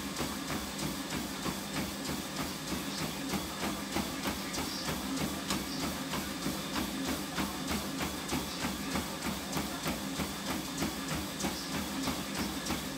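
Running footfalls landing on a treadmill belt in an even rhythm, about three a second, over the steady hum of the treadmill's motor and belt.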